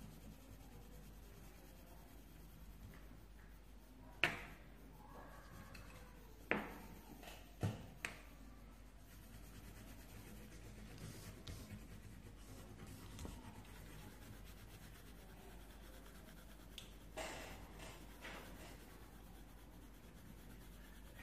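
Mostly faint quiet, broken by a few sharp taps about a third of the way in. In the last few seconds a coloured pencil scratches on paper.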